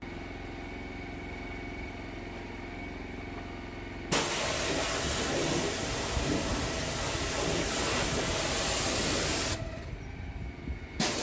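Pressure washer engine running steadily, then about four seconds in the lance is triggered and the high-pressure water spray hisses loudly for about five seconds before stopping, rinsing down the cleaned paving.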